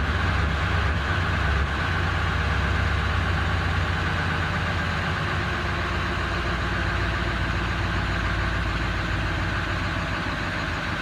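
Ford 7.3 Power Stroke V8 turbo-diesel idling steadily with a rough, uneven idle that the owner is asking for help with.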